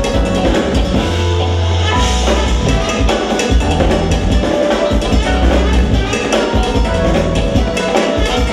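Live jazz-funk fusion band playing an instrumental groove: drum kit and hand percussion over a heavy bass guitar line, with electric guitar, keyboards and trumpet.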